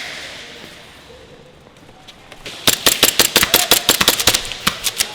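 Airsoft guns firing rapid full-auto strings of sharp clicking shots, about ten a second, starting about two and a half seconds in after a quieter stretch.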